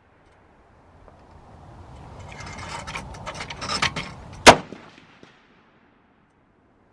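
A single rifle shot about four and a half seconds in, sharp and loud with a short echoing tail. Before it come a couple of seconds of rustling and scattered clicks.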